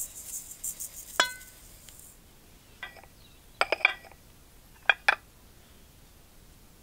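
Granulated sugar poured from a small ceramic bowl into an enamel mixing bowl, a fine grainy hiss that fades out within the first two seconds, with one ringing clink of the bowl at about a second in. Then several light clinks of small ceramic bowls knocking together as a bowl of cinnamon is picked up from a tray.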